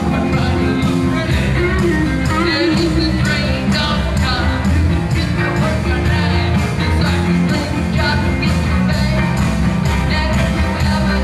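A live rock and roll band playing: electric guitars and drums with a tambourine shaken along, and a man singing lead at the microphone.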